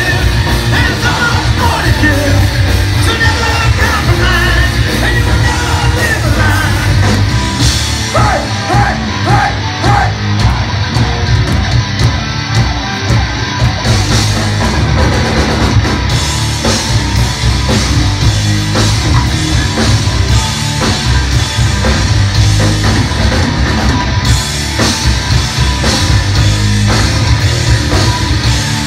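Heavy metal band playing loud live through a club PA, with shouted and sung vocals over distorted guitars and drums, recorded from within the crowd.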